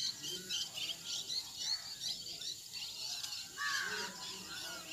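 Many small birds chirping together, a dense chatter of short high calls, with one louder, lower call standing out a little before the end.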